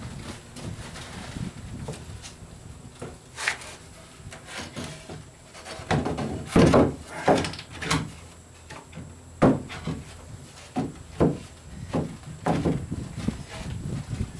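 Plywood stringer and bulkhead boards being knocked and shifted into place in a boat hull during a test fit: a series of irregular wooden knocks and thumps, busiest a little before the middle.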